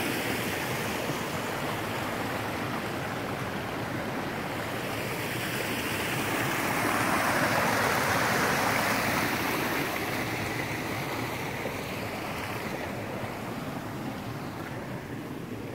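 Shallow stream running over stones, a steady rush of water that swells around the middle and fades toward the end.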